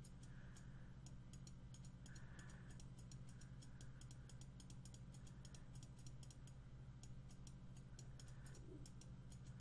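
Faint rapid computer-mouse clicking, several clicks a second, over a low steady electrical hum; otherwise near silence.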